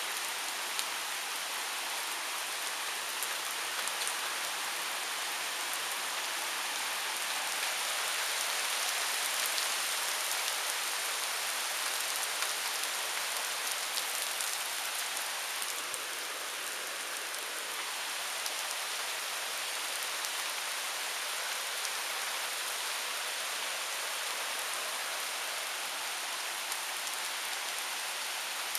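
Thunderstorm downpour: heavy rain falling steadily on pavement and trees, with fine drop ticks throughout, swelling slightly about a third of the way in.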